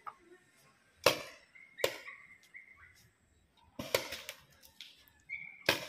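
Paintball markers firing on the field, with sharp single pops at irregular intervals: one about a second in, another a moment later, a quick cluster of shots near four seconds and one more near the end.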